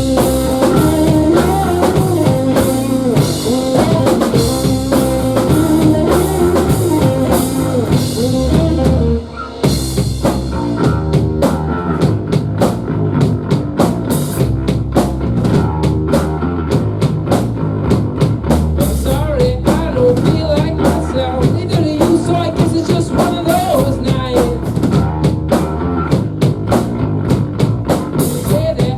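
Rock band playing live, with drum kit and guitar, and a brief drop in loudness about nine seconds in.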